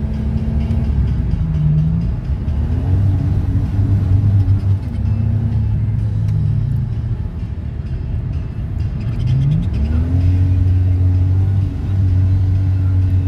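Holden VS Commodore engine running at high revs inside the cabin, its pitch dropping and climbing a few times, then rising steeply about ten seconds in and holding high.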